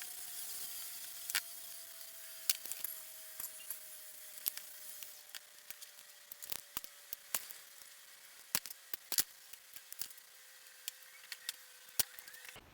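Small metal carburettor parts and tools clicking and clinking sharply and irregularly on a workbench, over a high hiss that fades away in the first few seconds and a faint thin tone that slowly drops in pitch.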